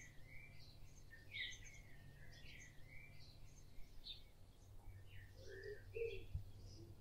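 Faint birds chirping, short calls, many falling in pitch and repeating every second or so, over a steady low hum.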